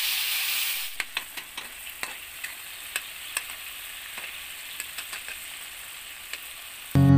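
Chopped tomatoes frying in oil in a pan: a loud sizzle in the first second that settles to a steady, quieter one, with a metal spatula scraping and clicking against the pan as they are stirred. Acoustic guitar music comes in loudly at the very end.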